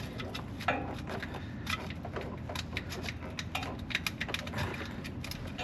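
Irregular light clicks and knocks of hand work with tools and shims at a starter motor's mounting bolts.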